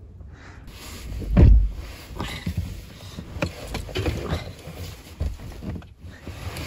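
Knocks and clatter of camp gear being handled during cleanup, with one heavy thump about a second and a half in, then a string of lighter irregular knocks.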